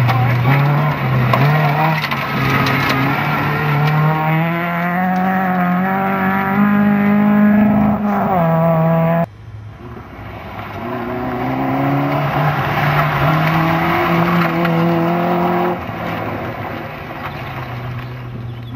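Front-wheel-drive rally cars at full throttle on a loose gravel stage, engines revving hard with gear changes and gravel noise from the tyres. First a Ford Ka, then, after a sudden cut about 9 s in, a Peugeot 205 climbing through the revs before easing off near the end.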